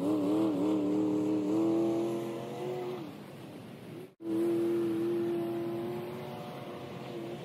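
Hummer H2's V8 engine revving, its pitch rising and falling over the first second, then running at a steadier pitch as the truck drives off. The sound cuts out for an instant about four seconds in, then the engine carries on steadily.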